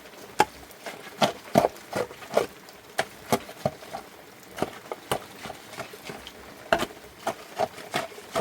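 Irregular sharp knocks and taps, a few a second, some louder than others.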